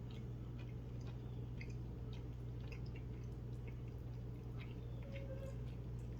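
Faint wet clicks and smacks of someone chewing food with the mouth close to the microphone, scattered irregularly, over a steady low hum.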